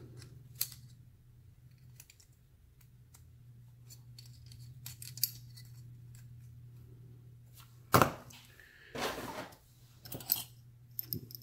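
Small metal clicks and clinks of pliers working the retaining clip on a brass Euro cylinder lock, spaced out, with a sharper clack about eight seconds in and a brief scrape just after. A faint steady hum runs underneath.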